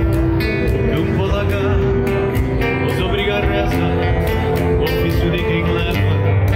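Live acoustic guitar music: a nylon-string guitar played with a second guitar alongside, and a man singing over it.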